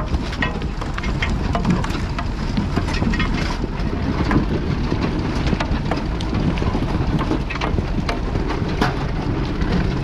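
Massey Ferguson 711 potato harvester running behind a Massey Ferguson 35X tractor: a steady low rumble of machinery, with constant irregular rattling and clatter of the harvester's moving parts, soil and stones.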